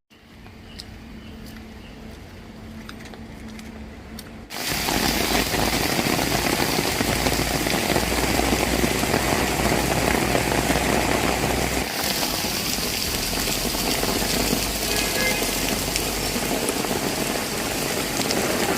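Steady hiss of rain with a low rumble underneath. It is quieter for the first few seconds, with a few faint clicks, then turns much louder and more even from about four and a half seconds in.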